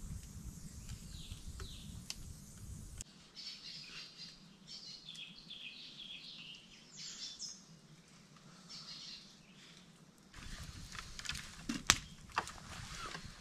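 Small forest birds chirping: many short, high calls in quick succession, thickest in the middle. Near the end come a few sharp snaps and knocks from the campfire as its wood is pushed in, one much louder than the rest.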